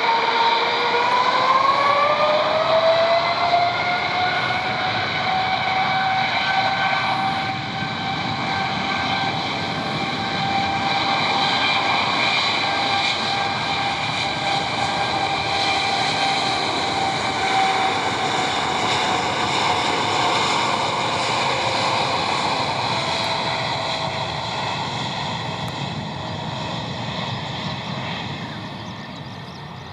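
Boeing 787 airliner's jet engines spooling up to takeoff thrust. A whine rises in pitch over the first few seconds, then runs steadily over a loud rushing noise and grows fainter near the end as the jet departs.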